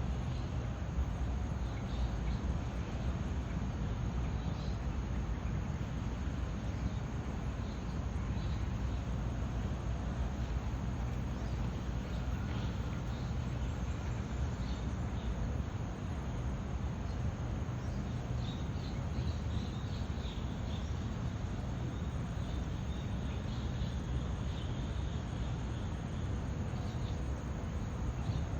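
Faint, short, high chirps from a small bird, scattered and clustering about two-thirds of the way in and again near the end, over a steady low background rumble.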